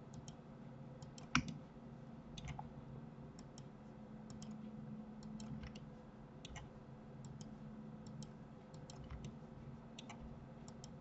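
Computer mouse buttons clicking irregularly and faintly, with one louder click about a second and a half in, over a steady low hum.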